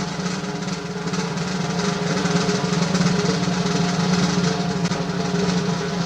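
A sustained drum roll sound effect: fast, even strokes over a held low pitch, played back from a 1990s radio-station broadcast cart.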